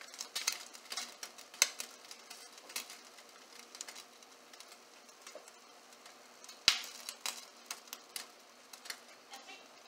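Scattered light clicks and crinkles of a disposable aluminium foil pan being handled as cheese slices are laid and pressed onto macaroni and cheese, with a sharper click about a second and a half in and another near seven seconds.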